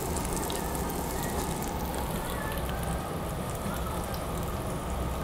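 Pork sizzling on a gas-fired tabletop grill plate: a steady hiss.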